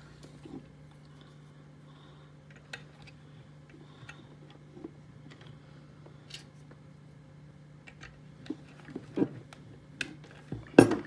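Scattered light clicks and taps of plastic plugs and cables being handled and pushed into a radio amplifier's microphone socket, over a faint steady low hum. The taps come closer together near the end, with a louder knock just before it.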